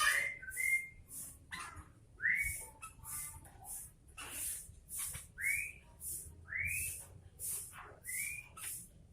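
Sooty-headed bulbul (kutilang) singing: a series of short whistled notes, each rising and then levelling off, about six in all, with quick high hissy chirps in between.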